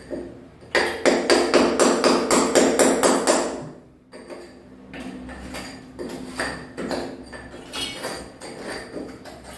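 Hammer driving a chisel into ceramic wall tile and concrete: a quick, loud run of blows, about four a second for nearly three seconds, then lighter, irregular strikes.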